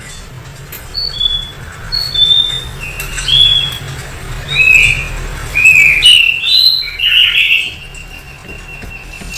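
A string of short, high chirping whistles, some gliding up or down, over a low steady hum.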